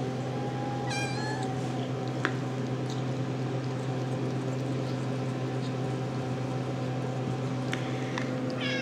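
RagaMuffin kitten giving two short, high-pitched meows, one about a second in and one near the end, over a steady low hum.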